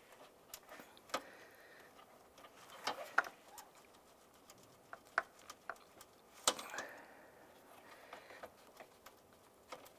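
Scattered light clicks and taps from a pick and fingers working a plastic electrical connector loose, the loudest about six and a half seconds in.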